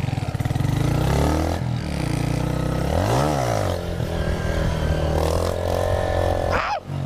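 Motorcycle engines running and revving. One bike passes close about three seconds in, its pitch rising and then dropping as it goes by.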